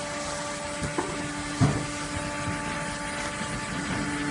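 Industrial liquid filling machine for glass-cleaner fluid running: a steady mechanical hum with several constant tones, broken by two sharp knocks about one and one and a half seconds in.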